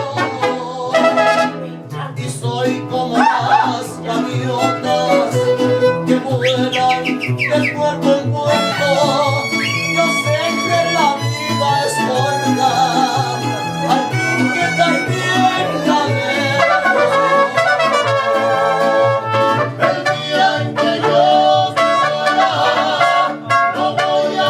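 Mariachi band playing an instrumental passage: violins carry the melody with vibrato over a steady, alternating bass line and strummed rhythm.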